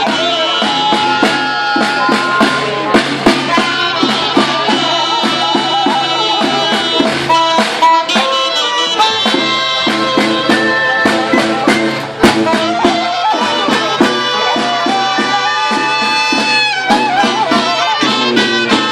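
A small ensemble playing folk-style music live: several melody lines over a steady low drone, with frequent percussive strokes and one sharp, loud hit about two-thirds of the way through.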